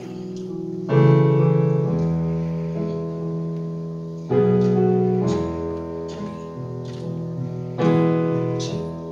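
Stage keyboard playing slow piano chords: three chords struck about three and a half seconds apart, each left ringing and fading.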